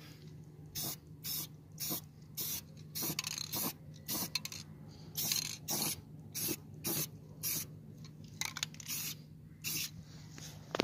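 Aerosol spray-paint can spraying gloss paint in short hissing bursts, roughly two a second.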